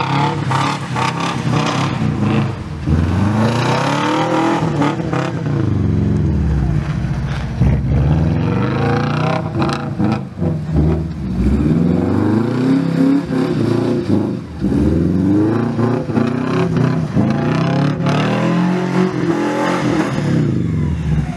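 A Subaru Legacy Outback's EJ22 flat-four, fitted with unequal-length headers and its axle-back exhaust removed, revving up and dropping back again and again as the car is slid around on snow.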